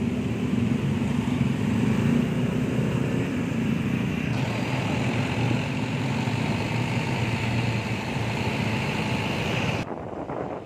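Steady traffic noise of vehicle engines running in a traffic jam. It drops abruptly to a quieter, duller sound shortly before the end.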